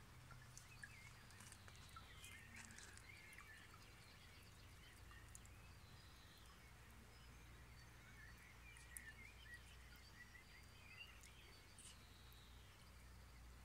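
Near silence: faint outdoor background with a low hum, scattered faint bird chirps in two spells, and a few faint ticks.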